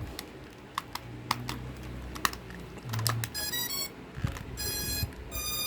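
Sharp plastic clicks and taps from handling the drone hardware, then three short electronic beep tones in the second half, each a bright chord of high notes, from the SJRC F11S drone gear being switched on.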